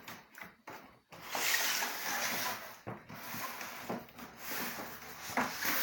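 Rustling, rubbing handling noise close to the microphone, with a few faint clicks before it and a few sharper knocks in it.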